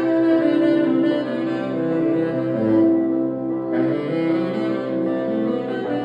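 Saxophone playing a slow melody of long held notes over a live band's accompaniment in an instrumental break of a pop-rock song.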